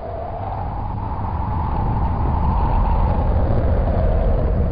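Low, steady rumble of many horses galloping together, with no separate hoofbeats to be heard; it swells over the first couple of seconds and then holds.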